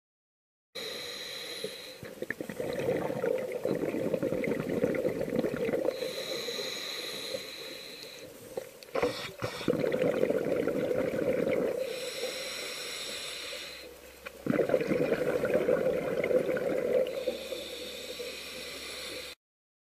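Scuba diver breathing through a regulator underwater: about three breath cycles, each a louder bubbling exhalation followed by a quieter hissing inhalation with a thin whistle.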